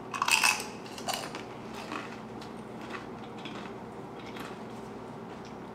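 Crunching bite into a tortilla chip scoop loaded with pico de gallo, then chewing. The loudest crunch comes at the first bite, another about a second in, then fainter crunches every second or so.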